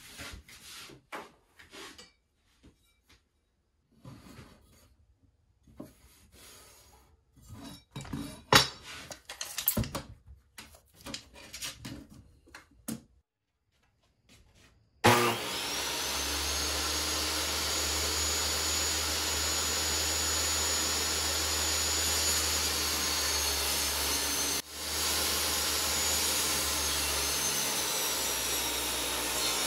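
Scattered light knocks and rubbing from handling a poplar board and a tape measure while marking it. About halfway a table saw comes in abruptly and runs steadily, cutting the 3/4-inch poplar board, with a high whine held over the motor and blade noise and a brief break a few seconds before the end.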